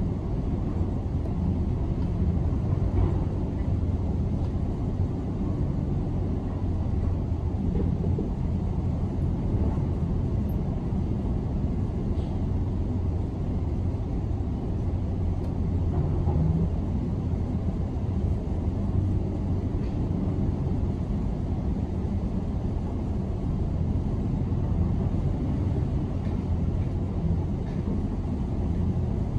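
Steady low rumble of heavy demolition machinery, muffled by window glass, with no distinct impacts.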